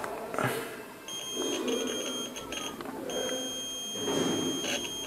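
Digital multimeter's continuity buzzer beeping as the probes touch a motherboard capacitor: a high steady tone that stutters on and off at first, then holds unbroken for about two seconds before cutting off. The buzzer is signalling a short across the capacitor, which the technician thinks may only be leftover stored charge.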